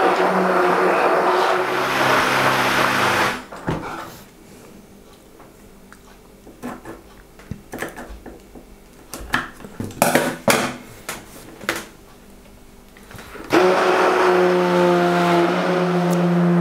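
Hand-held immersion blender running in a bucket of tomato and cream-cheese mixture, with a steady motor hum. It stops about three seconds in, leaving several seconds of scattered knocks and clatters, then runs again near the end.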